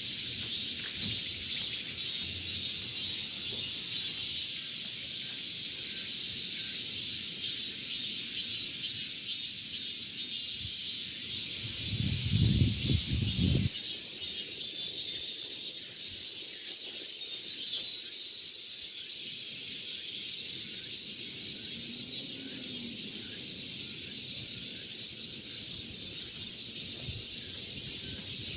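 A steady, dense, high-pitched insect chorus with a fast shimmering pulse, as heard in a summer forest. About twelve seconds in there is a brief low rumble lasting over a second.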